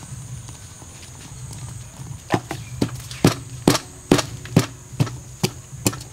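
A run of sharp, even knocks, about two a second, starting a little over two seconds in, over a steady high-pitched whine and a low hum.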